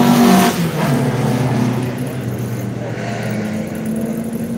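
Air-cooled VW Beetle flat-four engines running as the cars move along the pit lane. The loudest one is close at the start and its pitch drops about half a second in as it goes by, then a steadier, quieter engine sound follows.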